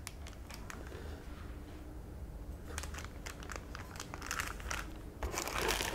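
Clear plastic polybag crinkling and crackling as it is handled, with light irregular crackles that get busier near the end.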